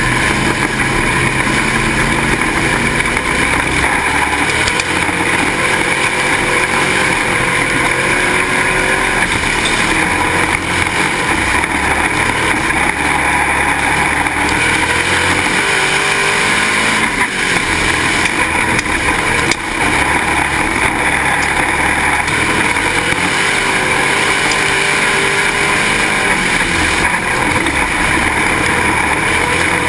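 Pro Stock dirt-track stock car's engine running on track, heard from a camera mounted on the car, its pitch rising and falling slowly in places.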